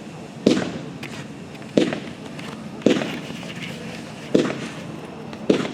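A 200-gram consumer fireworks cake whose shots all break into fish effects, firing shot after shot: five sharp launch thumps about a second apart, each trailing off into hiss and crackle.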